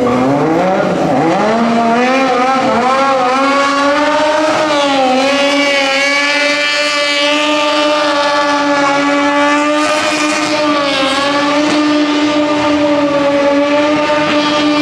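Sport motorcycle engine held at high revs during stunt riding. The pitch swings up and down over the first few seconds, then holds steady.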